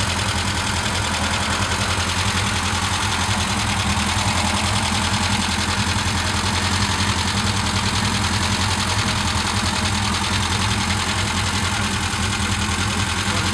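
Renault 5 Turbo 2's turbocharged four-cylinder engine idling steadily.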